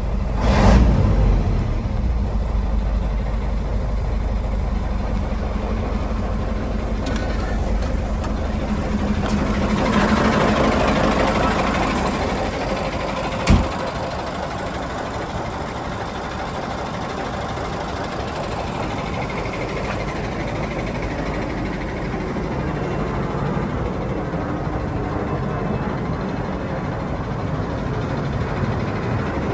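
Mercedes-Benz 1936 tipper truck's V10 diesel engine idling steadily, with a brief swell about a second in and a single sharp knock around the middle.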